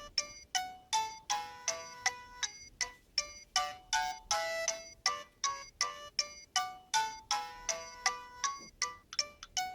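A Nokia 6230b ringtone playing: a polyphonic melody of short, bell-like notes with quick decays, about three a second, the notes coming quicker near the end.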